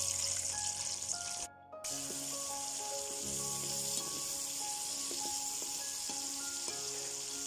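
Sliced shallots sizzling as they fry in hot oil and masala in a pan, with soft background music. The sound cuts out briefly about a second and a half in.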